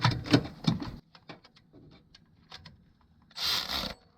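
Hand tools working on engine bolts: a quick run of metal clicks and knocks, scattered light ticks, then a short rubbing scrape near the end.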